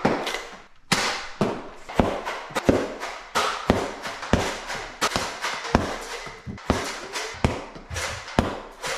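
Toy foam-dart blaster firing again and again, about two sharp pops a second.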